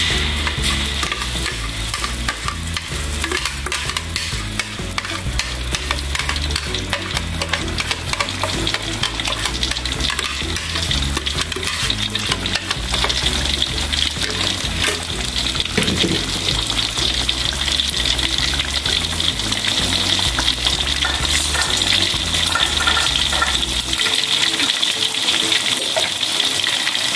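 Blended chili, shallot and garlic spice paste sizzling steadily as it fries in hot cooking oil in a wok.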